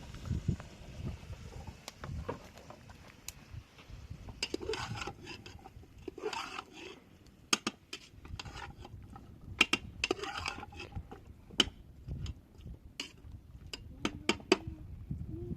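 Dishes and cooking utensils being handled: scattered sharp clinks and knocks, with a few short scraping passes.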